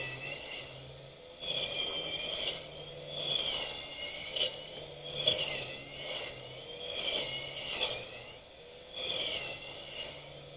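Electric grass cutter's motor running, its pitch dipping and recovering every second or two as it swings through grass under changing load.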